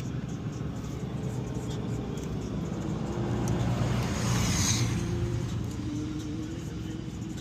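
Engine noise of a passing vehicle, swelling to its loudest about four and a half seconds in and then fading, over a steady low rumble.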